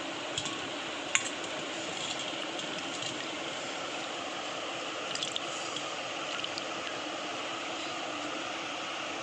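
Steady fan-like hiss with a few light clicks and small wet sounds as peeled pointed gourd pieces go into a steel bowl of water, the sharpest click about a second in and a short cluster around five seconds.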